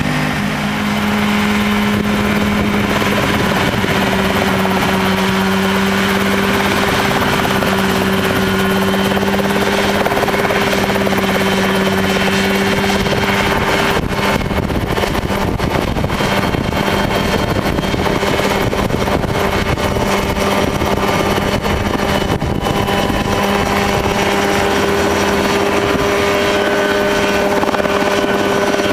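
Mosquito XE single-seat homebuilt helicopter's engine and rotor running steadily, a constant drone that holds its pitch.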